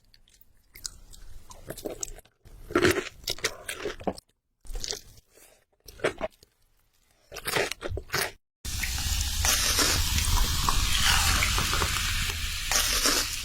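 Crunchy bites and chewing of fried chicken in several short, separately cut bursts. For the last five seconds a steady, loud hissing noise takes over.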